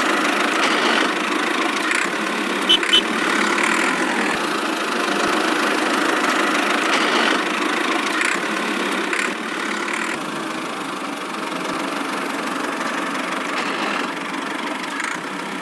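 Engine running steadily, with two short sharp clicks about three seconds in and the sound easing slightly about ten seconds in.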